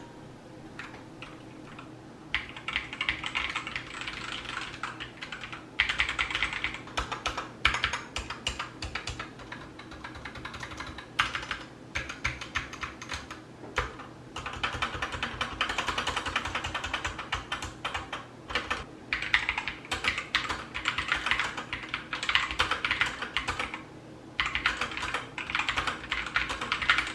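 Typing on a GK61 mechanical keyboard with Gateron optical red linear switches and HyperX double-shot PBT pudding keycaps: fast runs of keystrokes lasting a few seconds each, broken by short pauses.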